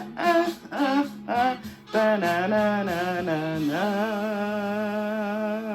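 Music with a singing voice: short sung phrases, then one long held note with a light vibrato over the last couple of seconds.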